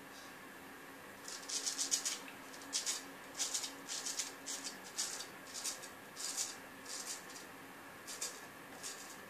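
Vintage A.J. Jordan straight razor scraping through lathered beard stubble in a quick series of short strokes, two or three a second, a crisp rasp of whiskers being cut, starting about a second in.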